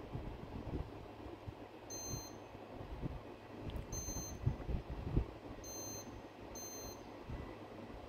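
Split air conditioner indoor unit beeping four times, one short high beep each time it receives an infrared remote command, the last two close together. A few low bumps rise above a steady low hum.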